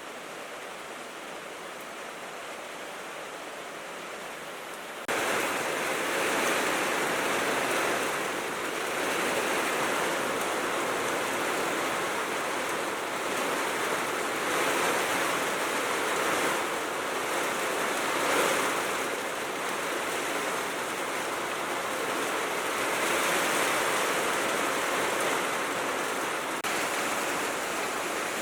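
Steady rain drumming on a corrugated tin roof: a dense, even hiss of drops. It jumps abruptly louder about five seconds in and then holds, swelling and easing a little.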